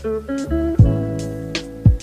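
Background music: a guitar-led beat with a thumping kick drum and sharp percussion hits, repeating in a steady loop.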